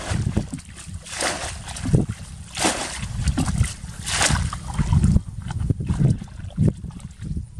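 Muddy water scooped up in a plastic bucket and poured out, in repeated irregular splashes and sloshes, over a constant low rumble.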